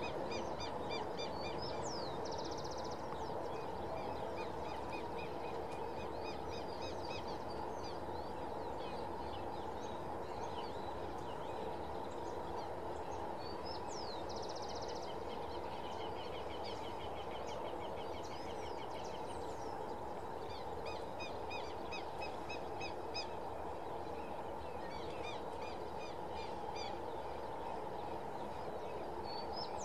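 Songbirds chirping and trilling, with a buzzy trill now and then, over a steady low rumble from a distant freight train rolling past.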